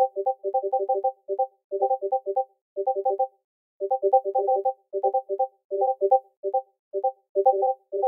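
Discord message notification ping repeated over and over: short, bright electronic blips, several a second, some overlapping, in irregular clusters with brief silent gaps between them.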